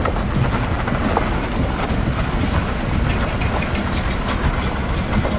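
Wheels rolling over a rough dirt trail: a steady rumble with many small irregular clicks and rattles.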